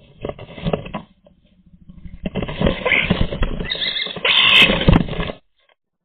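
European starling scrabbling and shuffling inside a wooden nest box: its claws scratch on the wood and rustle the dry nesting material, heard close up from inside the box. The noise comes in a short burst, eases off, then grows busier and stops abruptly a little after five seconds in.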